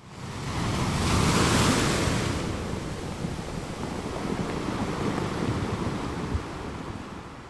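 Sea waves washing as surf: a wave breaks with a rising whoosh, loudest about one to two seconds in, then a steady wash of surf that fades away near the end.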